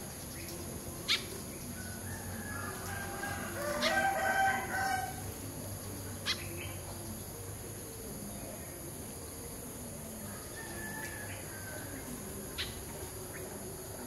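A rooster crows once in the background, one drawn-out call beginning about two and a half seconds in. A few short sharp chirps from small birds come over a steady high hiss.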